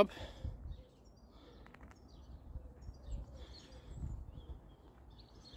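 Quiet outdoor ambience: faint birds chirping on and off over a low background rumble, with a few soft clicks.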